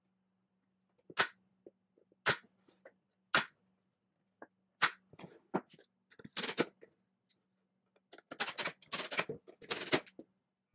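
Cordless driver sinking screws into pine boards in short bursts: a few single sharp bursts, then longer runs near the end.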